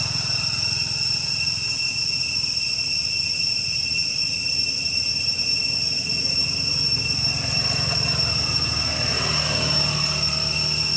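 Insects droning without a break: a steady high-pitched tone with a second, higher one above it, over a steady low rumble.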